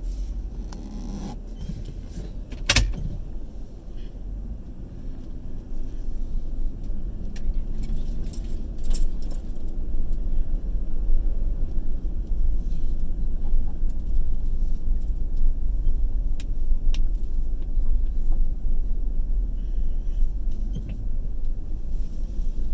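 Vehicle driving on the road, heard from inside the cab: a steady low engine and road rumble that grows louder after a few seconds as speed picks up, with scattered light rattles and clicks and one sharper click a few seconds in.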